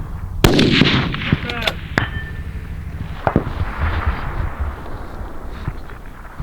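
A centerfire precision rifle shot about half a second in, with a short echo, followed by a few smaller sharp clicks and knocks over the next few seconds.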